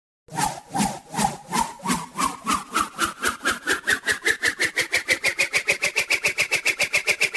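Cartoon swoosh sound effect: a run of swishes that speeds up steadily, from about two or three a second to about seven a second, with a whistling pitch rising underneath.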